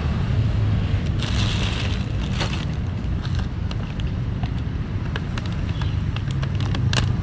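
Steady low rumble of street traffic and wind on the microphone. A brief rush comes about a second in, and from about three seconds on there are small crinkles and clicks of a plastic food bag being opened by hand.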